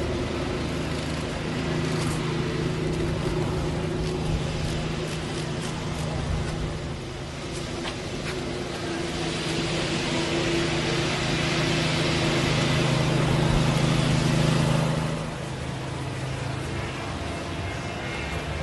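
Steady low engine hum, with a rush of noise that swells through the middle and drops away sharply about fifteen seconds in.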